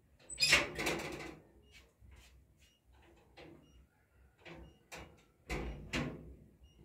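Bread wrapper rustling and crinkling as it is handled, in short bursts: a loud one about half a second in, another near the end, and smaller rustles between.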